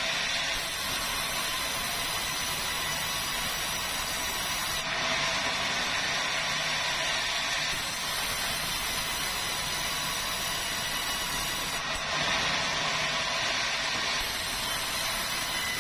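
Sawmill band saw cutting red meranti timber: a steady mechanical whine with several high tones over the hiss of the blade in the wood. The sound shifts a few times, about five seconds in and again near twelve seconds, as the beam is pushed along the blade.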